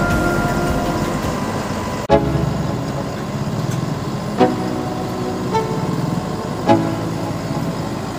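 Combine harvester engine running steadily, with short horn toots about two, four and a half, five and a half and nearly seven seconds in.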